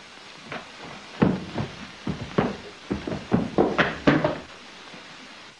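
A football thumping and knocking: a run of about ten thuds over some three seconds, the last of them as it is kicked down a stairwell.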